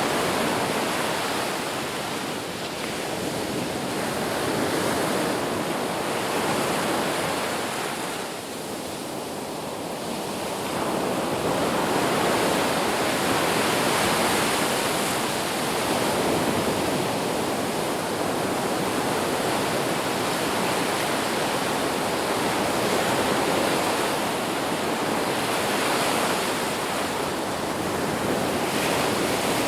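Ocean waves washing onto a beach, a continuous rush of surf that swells and eases, softening for a couple of seconds about eight seconds in before building again.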